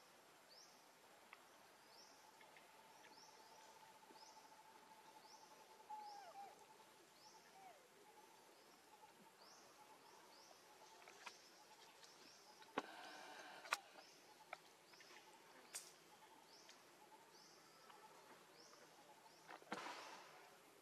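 Faint forest ambience: a short high chirp repeats roughly twice a second throughout, with a couple of sharp clicks partway through and a brief rustle near the end.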